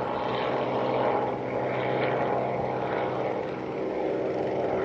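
Robinson R44 helicopter flying away, its rotor and piston engine making a steady drone.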